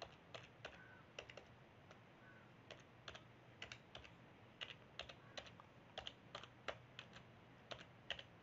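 Faint keystrokes on a computer keyboard, typed in uneven runs of sharp clicks with short pauses between them.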